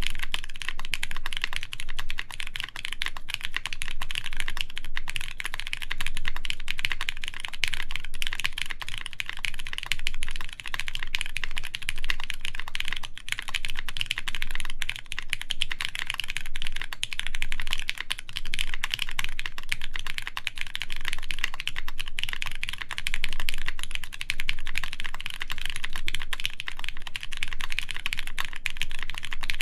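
Continuous typing on a Keycult No. 2 Rev. 2 mechanical keyboard with lubed Cherry MX Brown tactile switches, a full aluminium plate and GMK keycaps: an unbroken stream of keystroke clacks.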